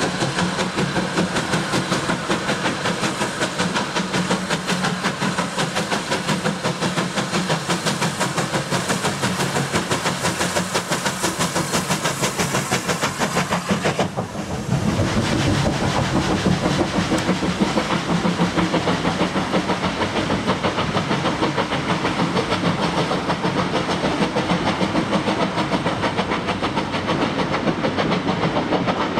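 Three-cylinder Bulleid Pacific steam locomotive working a train away from a station, a rapid steady exhaust beat with steam hiss. About halfway through the sound turns deeper and fuller.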